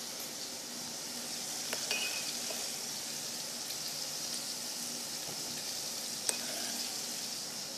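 Beef burger patties frying in olive oil in a pan on medium heat, a steady sizzle. A couple of light clicks stand out, the sharpest about six seconds in.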